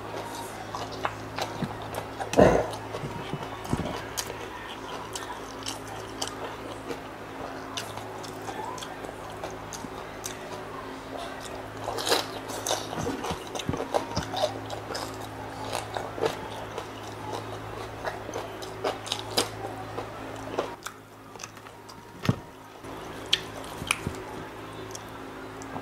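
Close-up chewing and biting of crispy pork knuckle and rice, with wet mouth smacks and scattered crunches over a steady low hum. One louder, sharp sound comes about two and a half seconds in.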